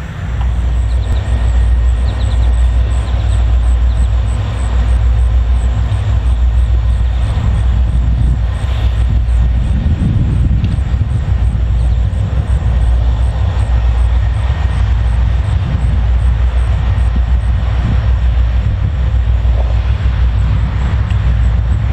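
A pair of EMD GP39-2 diesel-electric locomotives working a freight train: a steady low rumble of their turbocharged diesel engines.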